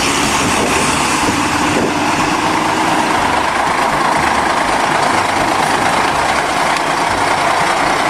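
Double-decker bus's diesel engine running steadily as the bus drives slowly past.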